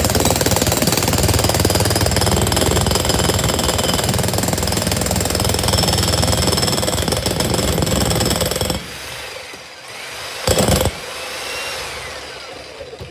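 TOPSHAK TS-DH1 brushed electric demolition hammer running with its chisel bit hammering into a chunk of concrete. It stops about nine seconds in and gives one short burst about a second and a half later, as the bit gets stuck in the concrete.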